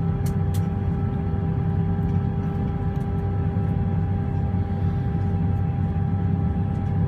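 Airliner cabin noise while taxiing: a steady low engine rumble with a constant hum of two steady tones. Two faint ticks come near the start.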